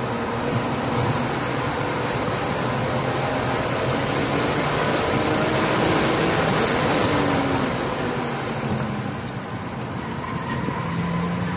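BMW E46 M3's S54 straight-six at full throttle in third gear, revving up to about 6,500 rpm. It falls away as the car comes off the throttle for the next corner, then picks up again near the end, with wind and road noise in the cabin.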